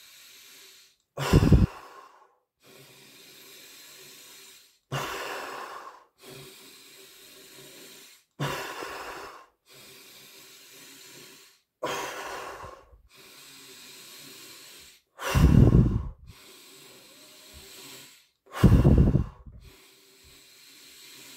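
A man doing Wim Hof method breathing: long, drawn-in breaths alternating with short, loud out-breaths, about six cycles, one every three to four seconds. The two out-breaths near the end are the loudest.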